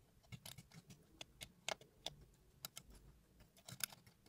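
Thin metal wire pick scraping and clicking inside a smartphone's charging port, digging out packed debris: a quick, irregular run of small sharp clicks and scratches.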